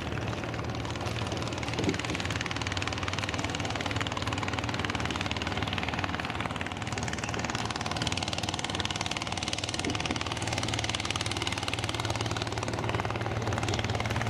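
A long-tail motorboat engine idling with a steady low hum, growing a little louder near the end.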